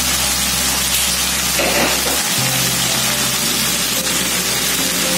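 Background music with low held bass notes, over the steady sizzle of chicken frying in a wok.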